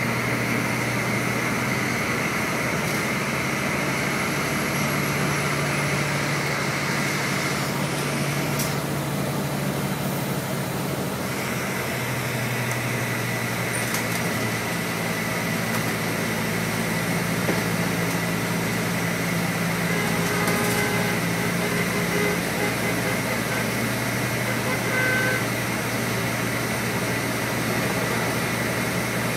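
Steady drone of a vehicle's engine and tyres heard from inside its cabin as it climbs a curving elevated ramp, with a thin steady high whine over it. A few faint short tones sound about two-thirds of the way in.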